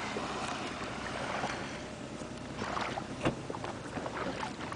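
Water lapping and gurgling against a small boat's hull on a calm sea, with a few soft splashes, the sharpest about three seconds in.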